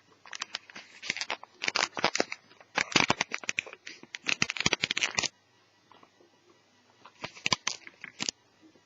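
Rapid crackling and clicking of plastic being handled during work on a netbook's hard drive install, in a long run of about five seconds and a shorter one near the end.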